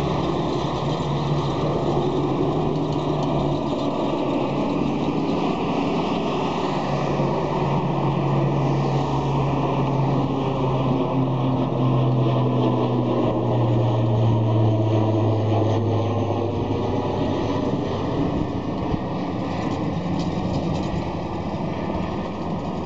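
Twin-turboprop airliner climbing out overhead just after takeoff: a steady propeller drone with a low hum that slowly falls in pitch as it passes and fades out about three quarters of the way through.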